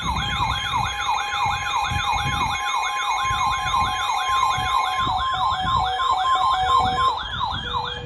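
Electronic siren alarm of a weather radio going off, in a fast yelp of about three rising sweeps a second. It starts suddenly and cuts off just before the end. It is the radio's alert that a new warning is coming in.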